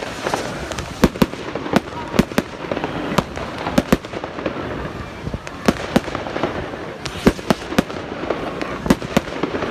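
Aerial fireworks going off: a rapid, irregular string of sharp bangs, roughly two a second, over a steady background hubbub.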